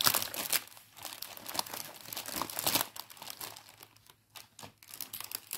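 Plastic packaging crinkling and rustling in irregular bursts as kit items are packed back into it, busier in the first few seconds and sparser toward the end.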